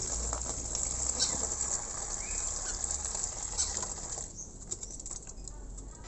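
Water being poured into a small plastic bird bath in a cage, a steady splashing patter that stops about four seconds in. A few soft splashes and flutters follow as the myna steps into the water to bathe.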